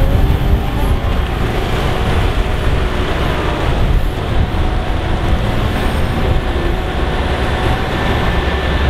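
Steady, loud machinery noise with a deep rumble.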